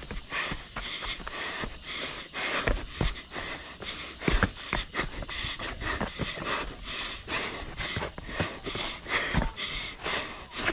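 A trail runner's footsteps on a rocky dirt path, irregular, about two or three a second, with the runner's breathing.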